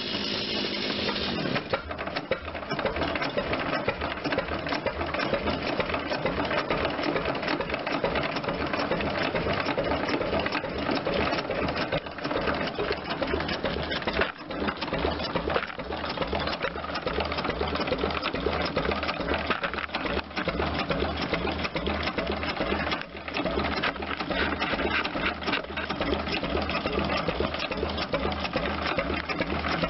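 1927 Cummins one-cylinder diesel stationary engine running, with a fast, even mechanical clatter over a steady low pulse that settles in about a second and a half in.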